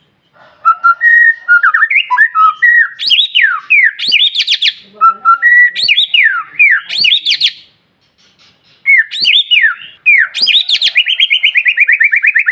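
White-rumped shama (murai batu) singing a loud, varied song of rich whistled phrases and sharp down-slurred notes, with a short pause about two-thirds of the way through, then breaking into a fast, evenly repeated trill near the end.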